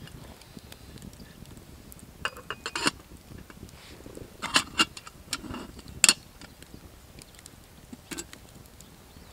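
Sharp metal clinks of a small camping kettle being handled as its lid is fitted on and it is set down on burning logs: a quick run of clinks a little after two seconds in, two more about four and a half seconds in, the loudest single clink about six seconds in, and a last one near eight seconds.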